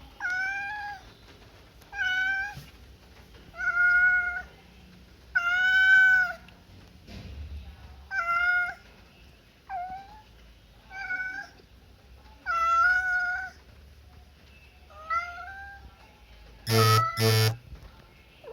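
Domestic cat meowing about nine times, one call every second or two. Near the end come two short, loud electronic buzzes.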